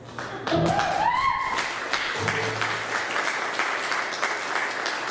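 Audience applauding at the end of a song, with many hands clapping, and a single rising cheer about a second in.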